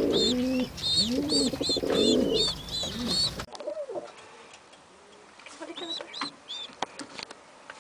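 Domestic pigeon cooing: a run of low coos that rise and fall, about one a second, with rapid high-pitched peeps over them. About 3.5 s in the sound cuts off suddenly. It goes on much quieter, with a few faint peeps and soft clicks.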